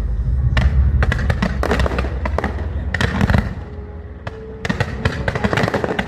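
Aerial fireworks display: clusters of sharp crackling bangs in quick succession, over a deep booming rumble that fades about halfway through.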